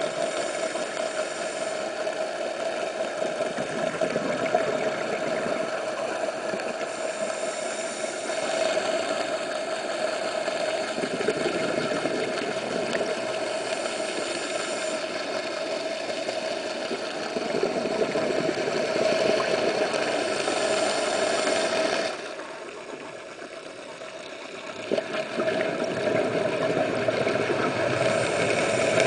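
Boat engine heard underwater: a steady droning hum with a strong mid-pitched tone over a haze of water noise. It grows louder about 8 s in and again about 17 s in, then drops away for about three seconds near 22 s before returning.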